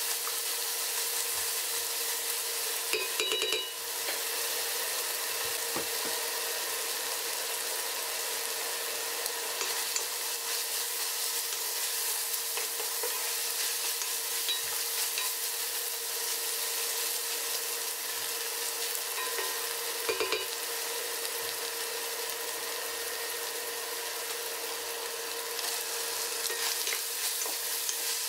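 Diced chicken breast sizzling and frying in an enamelled cast-iron pot, stirred and scraped with a wooden spoon, with a faint steady hum under the sizzle. A few brief knocks come about three seconds in and again near twenty seconds.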